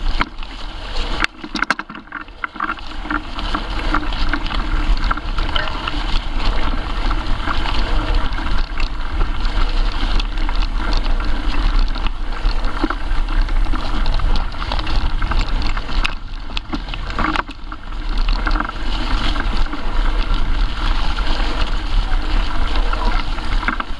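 Mountain bike riding over a leaf-strewn forest trail, heard from a camera on the bike or rider: a steady rolling rumble and rattle, with wind on the microphone.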